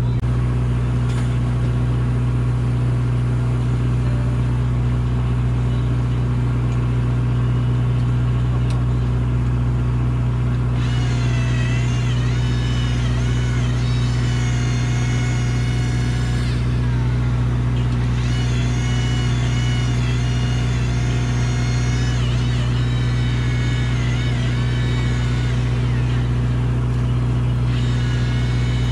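A boat engine runs steadily underneath. From about eleven seconds in, an electric fishing reel's motor whines in spells, its pitch wavering under load as it winds in a hooked fish on a bent rod, stopping briefly a few times.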